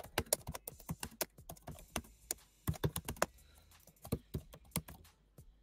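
Typing on a computer keyboard: quick, irregular key clicks, several a second.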